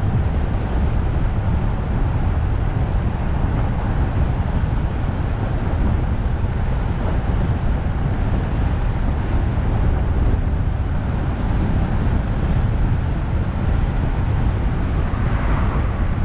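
Car on the move: steady low road and tyre rumble mixed with wind noise on the microphone, with a short swell of higher hiss near the end.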